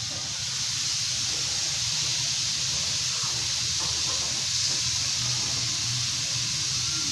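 Steady background hiss over a low hum, unchanging throughout.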